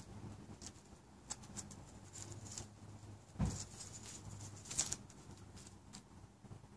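Faint handling noises from gloved hands working a small metal power steering pressure switch: rubbing and light clicks, with a couple of sharper knocks about three and a half and nearly five seconds in, over a faint steady hum.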